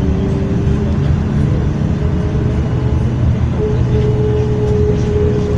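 Road vehicle engines running in traffic, a steady low rumble, with a higher steady engine tone joining about three and a half seconds in.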